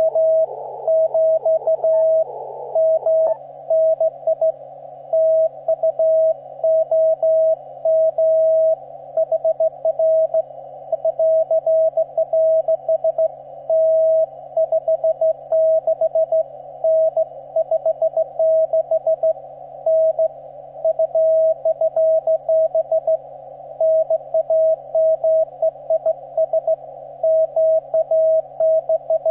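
Morse code on the 15-metre amateur band: a CW signal heard through a shortwave transceiver as a single-pitched beep keyed on and off in dots and dashes, over a narrow band of hiss and a faint low hum. About three seconds in, the hiss around the tone narrows as the receive filter is switched from 500 Hz to 300 Hz.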